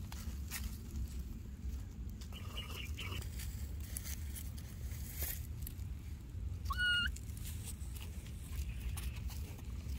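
A baby macaque gives one short rising squeal about seven seconds in, over faint crackling as it moves on dry grass.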